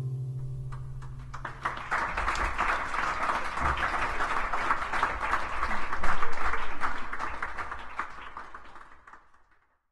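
The last ringing notes of the guitar and handpan die away, then a small audience applauds for about eight seconds, the clapping swelling and then thinning out and stopping near the end.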